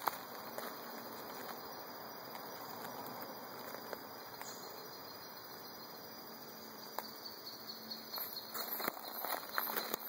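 Insect chirping in a fast series of high pulses over a steady background hiss, joined by a few sharp clicks.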